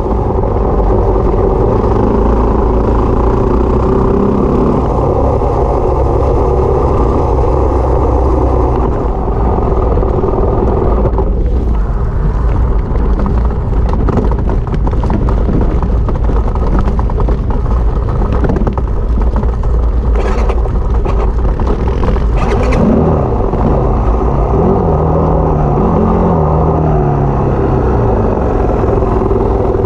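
Single-cylinder engine of a Yamaha WR250 dirt bike running while riding off road, steady at first. In the second half the revs rise and fall several times as the throttle is worked.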